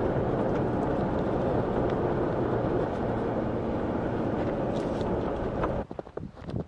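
Jeep Wrangler driving slowly over a snowy dirt track: a steady mix of engine and tyre noise that cuts off about six seconds in, followed by a few footsteps in snow.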